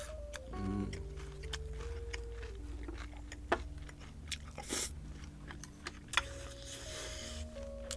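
Close-miked chewing with many sharp crunches: a mouthful of crispy Thai fried pork belly (moo krob) being chewed.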